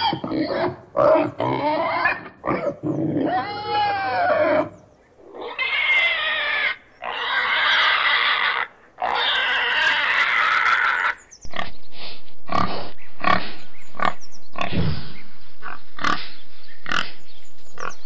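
Domestic pig grunting and squealing: short grunts and cries at first, then long, loud, high-pitched squeals from about five to eleven seconds in, then a quick run of short grunts.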